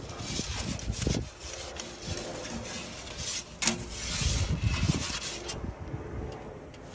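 A perforated metal pizza peel scraping and rubbing on the oven's baking stone as the pizza is slid and turned, in irregular rasping strokes, with one sharp clink a little past halfway.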